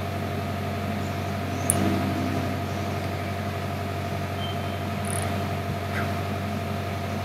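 Steady low hum of background noise, with one faint click about two seconds in.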